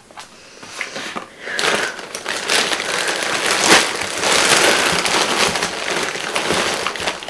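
Crinkling and rustling of a bag being rummaged through, with a few sharp clicks, starting about a second and a half in and going on steadily.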